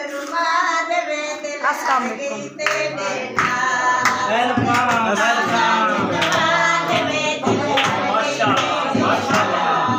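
Group of voices singing a dholki folk song together, with a regular beat of hand claps under the singing.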